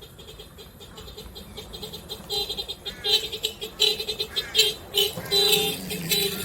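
Two car horns driven by a programmable musical horn controller, playing a quick run of short beeping notes that grows louder about two seconds in. Rising-and-falling chirps sound between the notes.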